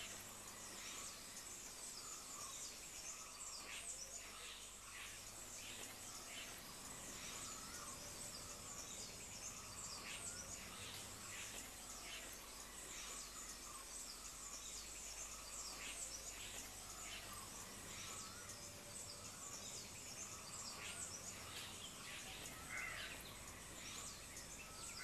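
Faint forest ambience: many birds chirping and calling in short, overlapping calls over a steady high insect hum.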